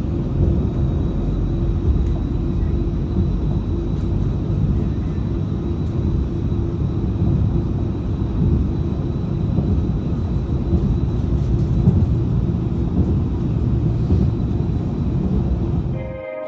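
Cabin sound of an Auckland AM-class electric train running at speed: a steady rumble of wheels on track, with a steady hum and a faint high whine. It cuts off suddenly at the very end.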